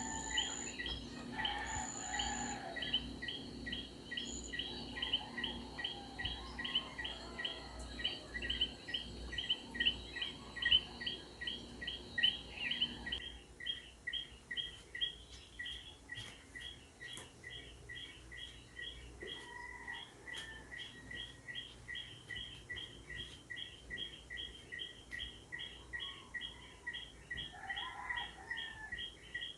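A night-time chorus of small animals chirping in a steady, even rhythm of about three high chirps a second. Partway through, a steady background hum drops out and the sound gets a little quieter.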